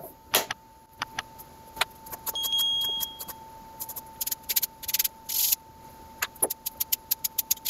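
A string of sharp clicks and clacks from small parts being handled, with a short high beep about two and a half seconds in and a fast run of clicks near the end.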